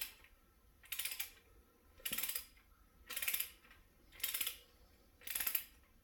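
Ratcheting wrench clicking in short bursts about once a second as it is swung back and forth, tightening the 10 mm main cap side bolts on an LS engine block.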